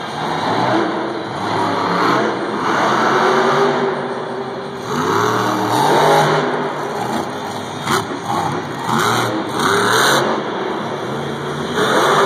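Grinder monster truck's supercharged V8 revving hard and falling off again and again as the truck jumps and wheelies, with a few sharp bangs about eight seconds in.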